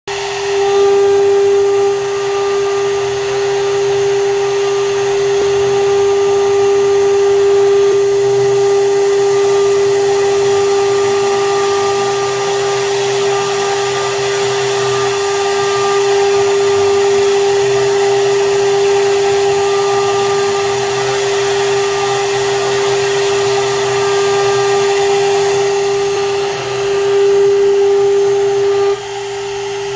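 High-speed spindle of a DIY CNC mill running with a steady whine while a small end mill engraves a round aluminium bar, with the hiss of cutting over it. The sound gets somewhat quieter near the end.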